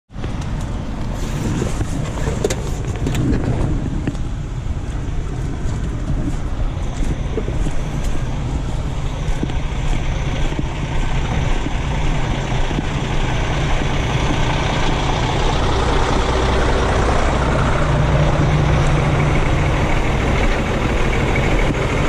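Heavy truck's diesel engine running steadily, with a few short clicks in the first few seconds.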